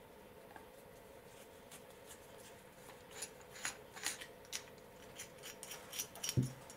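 Small metal clicks and scrapes of a flat-blade screwdriver prying the spring and seat out of an Interpump S284 pressure-washer safety relief valve's brass body. The run of sharp clicks starts about halfway through, with a soft thump near the end.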